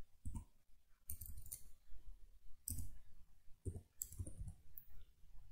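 Faint, irregular clicks of computer keys being typed, a few keystrokes at a time.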